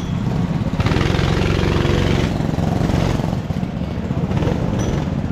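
Go-kart engines idling together on the starting grid, a steady pulsing rumble from the kart close by.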